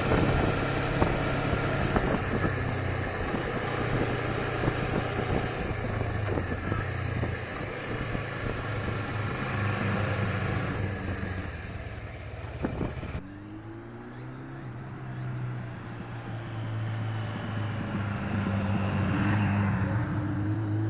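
Suzuki V-Strom 250's parallel-twin engine running on the move, with wind noise on the microphone. About 13 seconds in, the sound cuts to a quieter stretch where the engine revs up with rising pitch, then again near the end.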